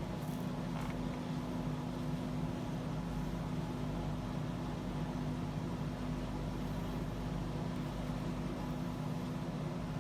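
Whole-house fan running, a loud, steady drone with a low hum.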